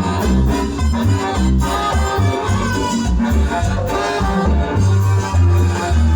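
Latin tropical dance orchestra playing live, an instrumental passage with a strong, bouncing bass line under the full band.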